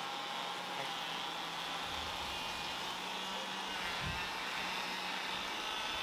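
Steady outdoor background hiss, with a couple of faint low knocks about two and four seconds in.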